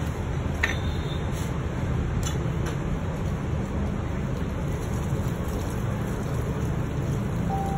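Steady low rumble of background noise, with a few faint light clicks in the first three seconds.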